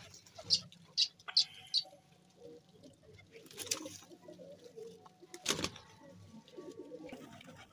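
A flock of pigeons cooing, with a few short sharp ticks in the first two seconds and flurries of wing flaps close by, the loudest about five and a half seconds in.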